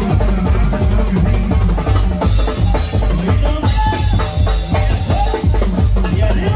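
Live tamborazo band playing a cumbia: the drum kit keeps a steady beat under the bass, and a melody line comes in about halfway.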